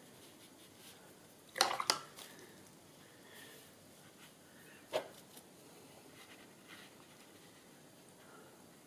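Light taps and clicks while painting with a brush and ink: two close together about a second and a half in, and one more about five seconds in.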